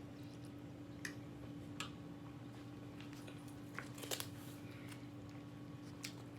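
Quiet room tone with a steady low hum, broken by a few faint, short clicks about one and two seconds in, a small cluster near the middle, and one more near the end.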